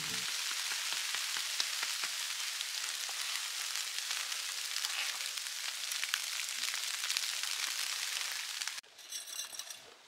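Blizzard snow pelting a One Tigris Rock Fortress tent's fabric, heard from inside the tent: a steady hissing patter with many fine ticks. It cuts off suddenly about nine seconds in, giving way to a much fainter outdoor sound.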